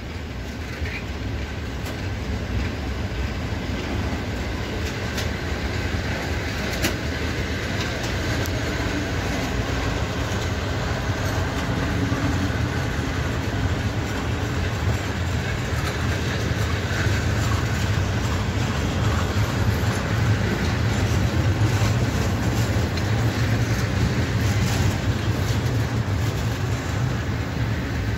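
Long freight train of open coal wagons rolling past as it pulls out of the station: a steady rumble of wheels on rail with scattered clicks over the rail joints, slowly getting louder.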